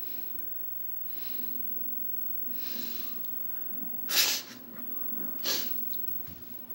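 A person's breathing close to the microphone: soft breaths about every second and a half, then two loud, short sniffs or snorts about four and five and a half seconds in.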